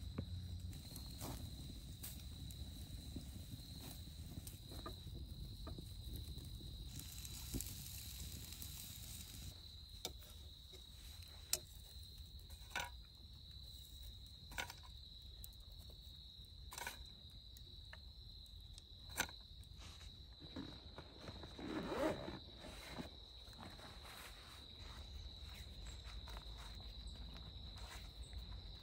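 Faint, steady high-pitched insect chirring, with scattered sharp clicks and a brief louder rustle about three-quarters of the way through.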